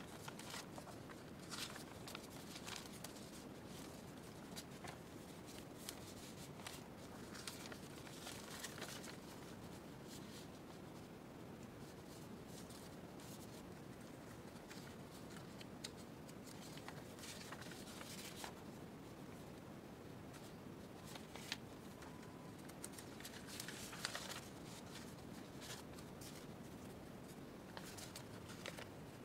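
Paper bags and sheets of patterned paper rustling and sliding against each other as they are shuffled and stacked by hand, in short scattered rustles over a faint steady hiss.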